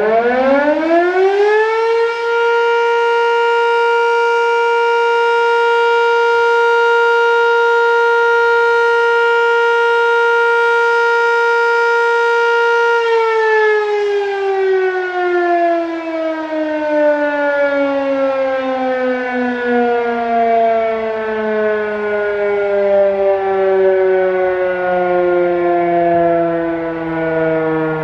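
GCS Model 5 outdoor warning siren sounding a test. Its pitch rises for about the first two seconds, holds one steady tone until about halfway through, then winds down slowly with the pitch falling.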